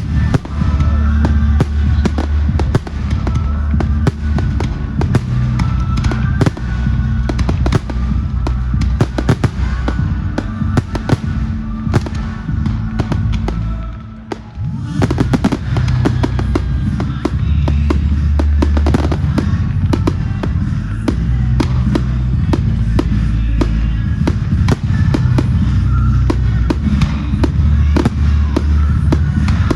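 Fireworks bursting and crackling in quick succession over music with a heavy bass line. Both drop away briefly about halfway through, then start again.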